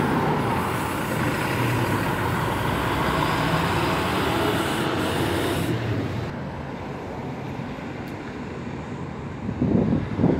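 Street traffic: a heavy vehicle's engine running and passing, its noise dropping away about six seconds in. A short burst of noise comes near the end.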